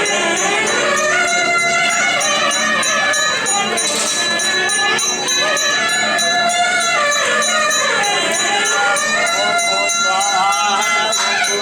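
Traditional devotional music: a gliding melody over a steady jingling percussion beat.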